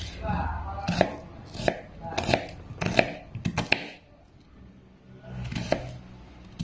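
Kitchen knife slicing a red onion on a wooden cutting board: a run of sharp knife strikes against the board, with a short pause about two-thirds of the way through before the cutting resumes.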